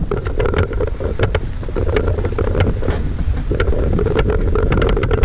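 Safari vehicle's engine running with a steady low rumble, with wind noise on the microphone and scattered small clicks and knocks throughout.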